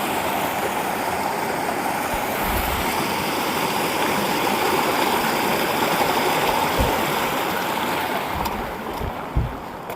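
Rushing creek water, a steady, even flow with a few low thumps mixed in; it grows quieter near the end.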